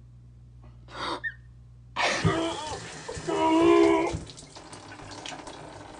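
Water running in a bathtub, starting suddenly about two seconds in, with a loud, held vocal cry over it in the middle. Before the water starts, a faint steady hum with one short hiss.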